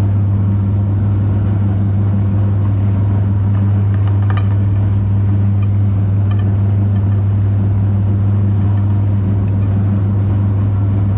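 Electric meat grinder running with a loud, steady motor hum, with a few faint crackles as it grinds chocolate.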